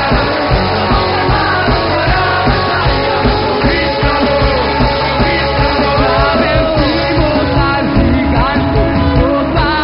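Live praise music from a full band, with a steady drum beat under singing voices.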